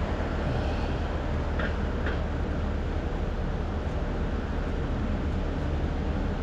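Steady wind and running noise of a Honda PCX 125 scooter's single-cylinder engine while riding, heard from the rider's camera, with two faint ticks about a second and a half and two seconds in.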